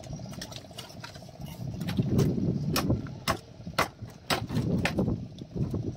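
Sharp clicks and taps of hard objects, coming about twice a second from around two seconds in, over a low rumbling background.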